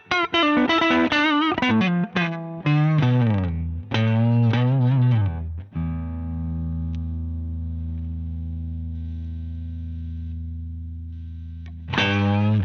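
Electric guitar overdriven through a Danelectro Transparent Overdrive V2 pedal. It plays a run of quick single notes with bends and vibrato, then lets low notes ring for about six seconds, then starts fast notes again near the end.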